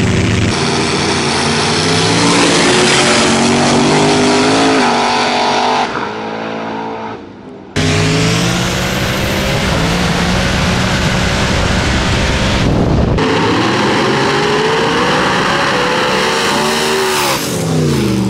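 Small-tire street drag cars at full throttle, engines climbing in pitch as they pull down the street. Near the end, one blasts past and its engine pitch drops sharply as it goes by.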